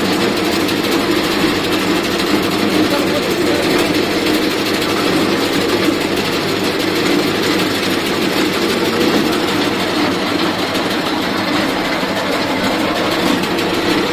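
Arecanut dehusking machine running steadily: its motor and rotor run with a continuous dense rattle as nuts and stripped husks pass through and tumble down the chutes.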